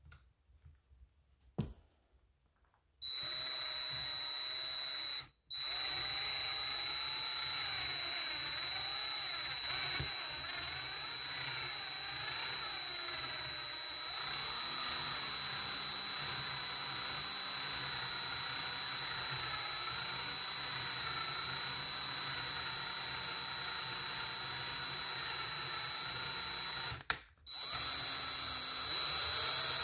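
Power drill running at a steady speed, driving a Helicoil coil thread insert into a bolt hole in a small engine's aluminium cylinder, with a steady high whine. It starts about three seconds in and stops briefly twice, once early and once near the end.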